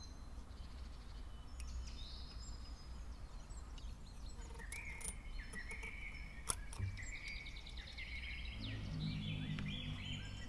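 Faint birdsong: many short chirps, trills and quick rising notes, over a low rumble. A single sharp click sounds about six and a half seconds in.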